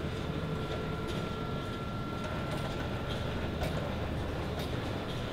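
Steady low rumble of ventilation and equipment in a power plant control room, with a constant high whine and a few faint ticks.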